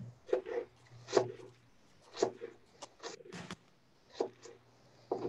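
A spoon stirring and tossing shredded napa cabbage and apple coleslaw dressed with sriracha mayo in a plastic container: irregular short wet scraping and crunching strokes.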